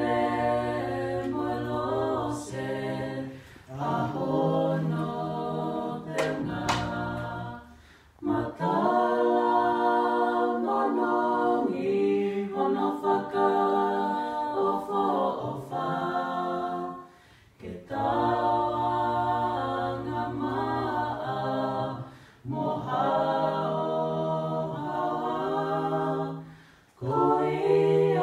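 A small group of men's, women's and children's voices singing a cappella in harmony, with short breaks between phrases.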